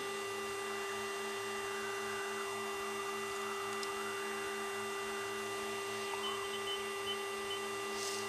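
Fairchild Metro twin turboprop in flight, heard from the cockpit: a steady low drone from the engines and propellers that pulses about four times a second, with a steady electrical hum above it.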